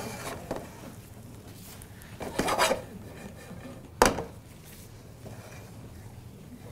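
Spatula stirring and scraping diced bacon, peppers and onion in a skillet, with a longer scrape about two and a half seconds in and a single sharp knock on the pan about four seconds in.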